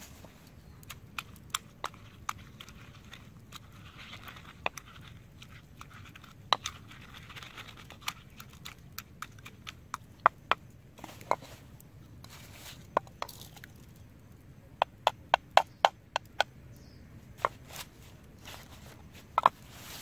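Wooden pestle pounding red chilies and garlic in a small wooden mortar: sharp, hollow wooden knocks at an irregular pace, with a quick run of about six knocks about three-quarters of the way in.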